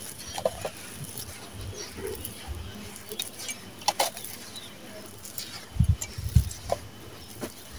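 Dry, gritty sand-and-cement mix crumbled between the hands, grit crackling and pattering as it falls back onto the pile, with a few soft thumps of clumps landing about six seconds in.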